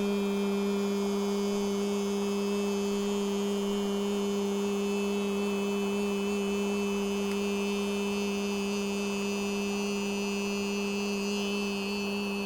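A man's voice holding one long, level 'eee' vowel tone on a single pitch: the qigong healing sound for the third-eye area between the eyebrows, sung on a slow exhale.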